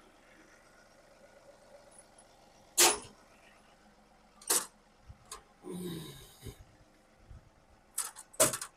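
Sharp metallic knocks and clicks from work on an AC unit's sheet-metal cabinet with a cordless drill in hand. The loudest knock comes about three seconds in, a rough noise lasts about a second past the middle, and a quick cluster of clicks comes near the end.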